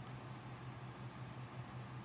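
Steady low hum with a faint even hiss: background room tone with no distinct events.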